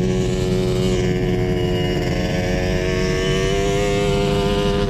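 Volkswagen engine of a sand rail running steadily under way, its pitch rising a little about halfway through.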